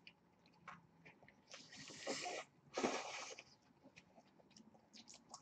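Quiet chewing of a burger with faint, scattered mouth clicks, and two breathy rushes of air through the nose about two and three seconds in.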